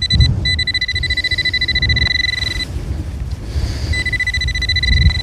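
Metal detector's steady high electronic tone sounding over a buried target: it holds for about two seconds, stops, then sounds again near the end. Low wind buffeting on the microphone runs under it.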